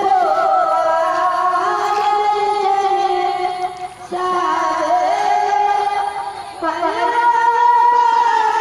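A woman singing in long held notes over music, with a brief break about four seconds in.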